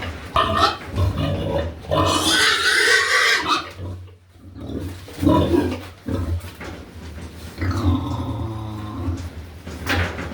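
Pigs grunting and squealing in irregular bursts, with a longer drawn-out squeal near the end.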